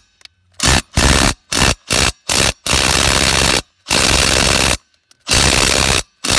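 Milwaukee brushed cordless impact driver hammering on a tractor wheel lug nut in repeated trigger bursts: several short bursts, then longer runs of about a second each.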